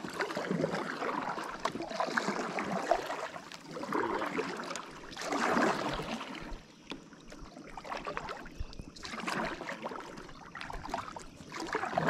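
Kayak passing through a shallow riffle: river water rushing and splashing against the plastic hull in uneven surges, the loudest about halfway through.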